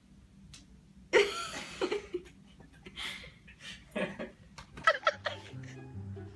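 People laughing in several loud bursts; soft music starts near the end.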